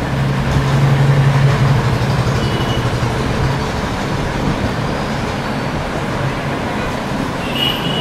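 Steady rushing background noise with a low hum that fades out after about three and a half seconds.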